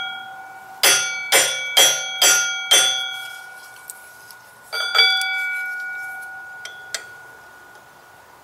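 A flywheel on a Honda K-series engine struck sharply with a metal tool, ringing like a bell after each hit. There are five quick strikes about two per second, then one more about halfway through that rings on for a couple of seconds, and two light clicks near the end.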